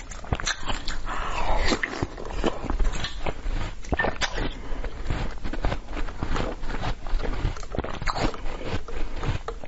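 Close-miked biting and chewing of a block of basil-seed ice: a dense run of sharp, irregular cracks and crunches as the ice breaks between the teeth.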